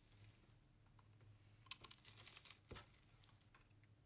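Near silence over a low steady hum, with a few faint clicks and ticks around the middle and one soft knock just after: small screws and a screwdriver being handled against a plastic calculator case.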